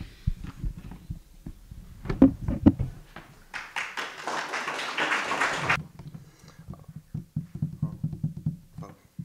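Handling noise from a wired handheld microphone: clicks and a couple of loud thumps, then about two seconds of rustling in the middle, then soft low bumps as the microphone changes hands at a wooden podium.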